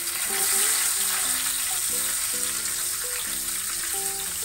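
Halved cape gooseberries sizzling in hot ghee in a frying pan: a loud, steady frying hiss as the fruit hits the hot fat.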